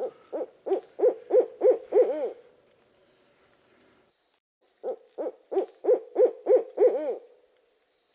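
An owl hooting in two runs of about seven short hoots each, roughly three a second, the last hoot of each run longer. A steady high-pitched whine runs behind them.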